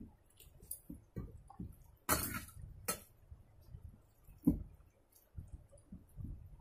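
Fingers mixing rice and fish curry on a steel plate, with light clinks and scrapes against the metal, and chewing of a mouthful. The loudest sound is a short noisy burst about two seconds in, with a sharp knock later on.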